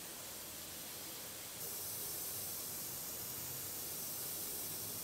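Iwata Revolution airbrush spraying black paint in a steady hiss, which gets louder about a second and a half in.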